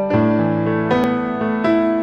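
Slow, gentle background piano music: single notes struck about every half second and left to ring over one another, with a deep bass note starting near the beginning.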